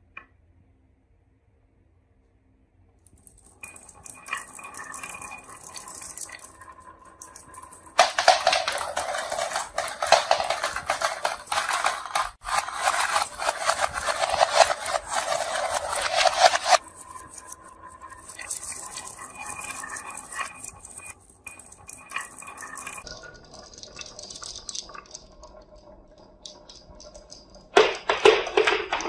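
Many marbles rolling and clattering down a marble run track. The clatter starts a few seconds in, grows into a loud dense rattle for several seconds, eases off, and swells again near the end.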